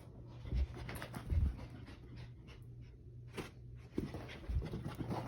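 Corgi puppy panting in quick soft breaths, with a few dull low thumps.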